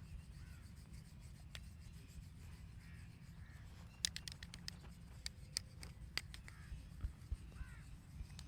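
Faint bird calls over a low steady rumble, with a quick run of sharp clicks about halfway through and a few more single clicks after it.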